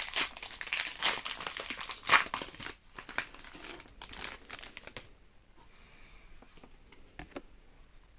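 Foil wrapper of a Pokémon card booster pack crinkling as it is torn open and handled, loudest about two seconds in. From about five seconds in it drops to a few faint ticks of the cards being handled.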